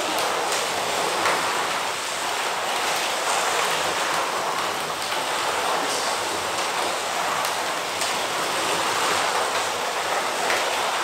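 Slot cars racing around a multi-lane track: a steady whir of small electric motors running without letup.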